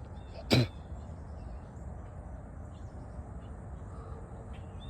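Steady low outdoor rumble with faint bird chirps, and one short, sharp vocal sound about half a second in.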